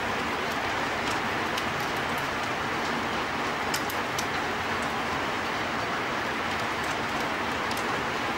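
Heavy rain falling in a steady hiss, with scattered sharp ticks of things striking.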